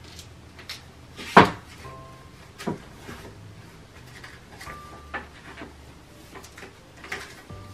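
Soft background music with a few sharp knocks and clicks of objects being handled on a work surface. The loudest knock comes about a second and a half in.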